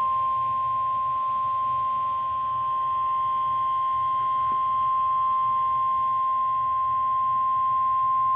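NOAA Weather Radio 1050 Hz warning alarm tone: one unbroken, loud, steady pure tone that cuts off abruptly near the end. It signals that a warning message follows, here a severe thunderstorm warning.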